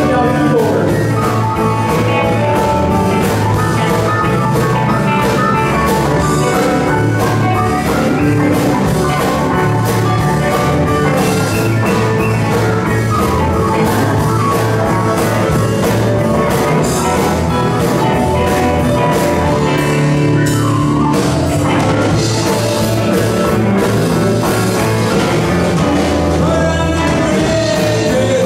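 Live rock band playing amplified through a PA: electric guitars, bass guitar, keyboard and drum kit keeping a steady beat.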